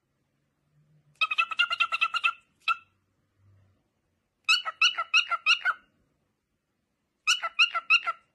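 Cockatiel chattering in quick runs of short chirps, three runs of about a second each with pauses between, as its head is scratched.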